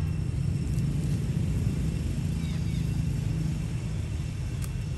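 A steady low rumble, with a few faint, short, high chirps over it.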